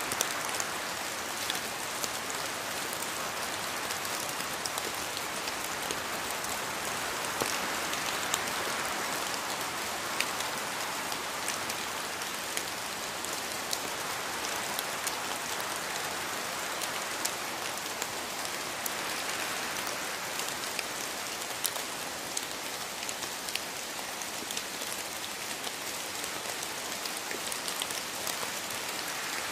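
Steady rain falling in a rainforest, an even wash of noise with many sharp individual drop hits scattered through it.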